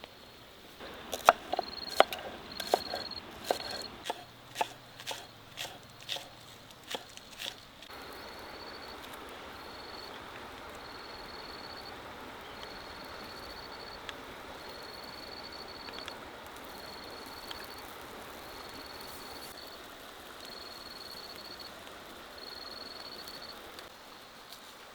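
A series of about a dozen sharp knocks in the first eight seconds, followed by a steady hiss. Throughout, an insect chirps high and regularly, about once a second.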